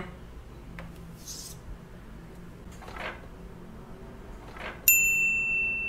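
Quiet room tone with a few faint soft rustles. About five seconds in, a sudden high bell-like ding starts and rings on, slowly fading.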